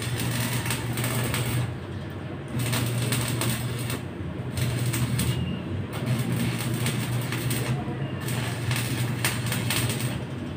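Homemade electric centrifugal blower running with a steady low motor hum as it forces air into a wood-fired barrel cookstove. The hum dips out briefly a few times, over frequent sharp clicks or crackles.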